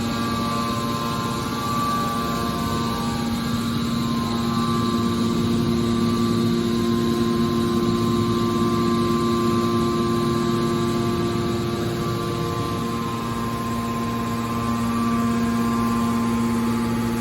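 Metal scrap baler running: a steady machine hum with several held tones that does not change.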